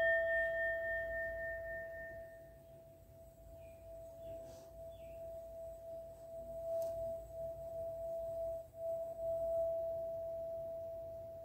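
Singing bowl ringing with one steady tone, its higher overtones fading over the first couple of seconds. From about four seconds in, a mallet is worked around the bowl and the tone swells and wavers, then slowly dies away near the end.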